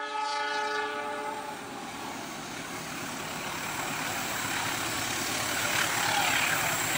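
Diesel locomotive horn sounding one chord-like blast that fades out after about a second and a half. Then the steady rumble of the approaching coal train, locomotive engine and wheels on the rails, growing louder.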